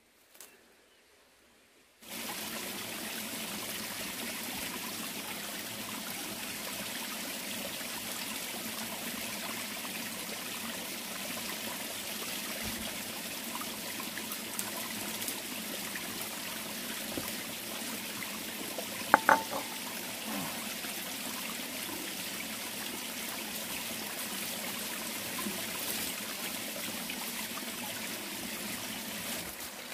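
Steady rush of a flowing stream, coming in about two seconds in after a moment of near silence, with one short click a little past the middle.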